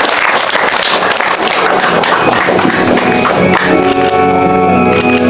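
Music at a party, with a noisy crowd and some clapping in the first half, giving way to steady held chords from about three and a half seconds in.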